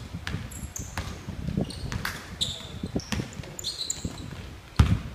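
A basketball bouncing on a hardwood gym floor during play, with repeated thuds, short high squeaks of sneakers on the floor, and one loud bounce near the end.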